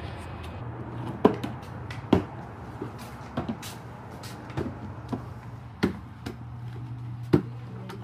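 Scattered knocks and clunks, about ten of them at irregular intervals, over a steady low hum.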